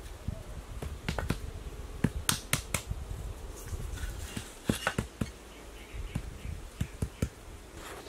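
Red clay bricks clinking and knocking as they are handled and set in place by hand, a string of sharp, irregular taps, some in quick pairs.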